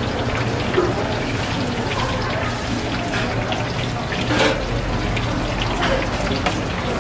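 Battered pieces deep-frying in a wok of hot oil: a steady sizzle with crackling, a little louder about four and a half seconds in.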